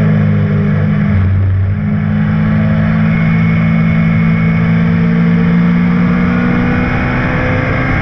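BMW M12/7 four-cylinder racing engine of a Lola T298 sports prototype running at speed, heard from the open cockpit. Its steady pitched note breaks briefly about a second and a half in, then holds steady.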